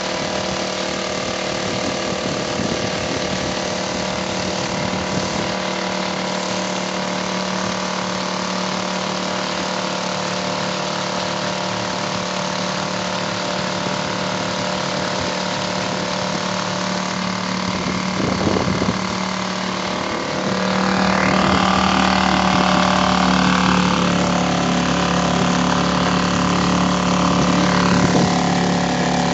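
Suzuki 2.5 hp outboard motor running steadily, driving the boat. It gets louder about twenty seconds in.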